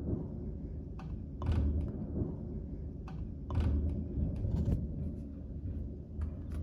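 A low rumble that swells a few times, with scattered sharp clicks and taps.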